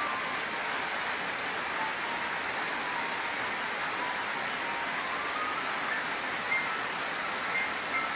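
Steady rain-like hiss with faint, slow single notes of a melody above it.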